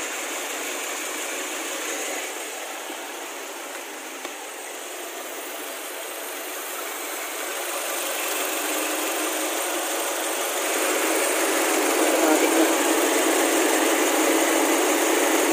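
Nissan X-Trail's QR20 2.0-litre four-cylinder engine idling steadily on a test run after a top overhaul. About ten seconds in the sound grows louder and stays up as the electric radiator cooling fan switches on automatically at operating temperature.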